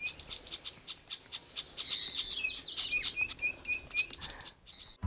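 Small birds chirping: quick trains of short, high notes, several calls overlapping, busiest around the middle. The sound cuts off suddenly near the end.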